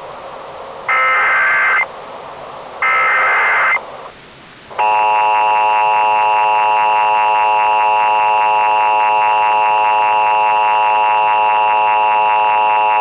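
Emergency Alert System SAME header: two harsh electronic data bursts about a second long, a second apart. They are followed by the EAS attention signal, a loud steady two-tone alarm held for about eight seconds that cuts off suddenly. This sequence announces a new emergency alert.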